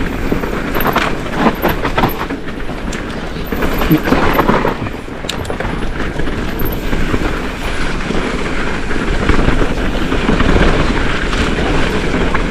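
Mountain bike riding fast down a rough dirt trail: tyres rumbling over the ground, with the chain and frame rattling continuously.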